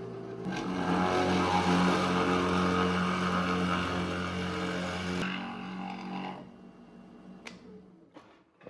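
Electric power tool motor running steadily while working scrap steel, with a harsh rushing noise over its hum for about five seconds; then the work noise stops and the motor winds down and fades.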